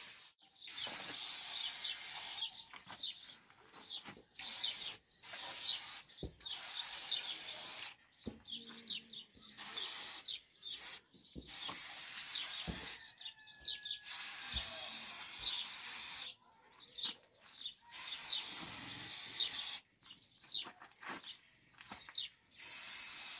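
Aerosol spray-paint can hissing in about a dozen short bursts, each a second or two long, with brief pauses between them as letters are sprayed onto a mud wall. Birds chirp faintly in the background.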